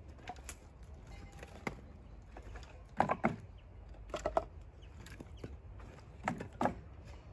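Pieces of firewood knocking against each other as they are handled. There are three short clatters a second or two apart, each of two or three hard knocks.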